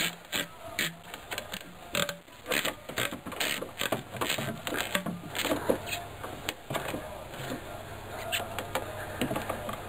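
Plastic coolant expansion tank being twisted and worked off its rubber hose, a run of short squeaks and clicks of plastic and rubber that thin out after about six seconds.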